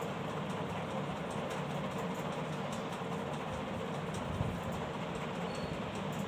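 Steady rumbling background noise, with faint ticks scattered through it.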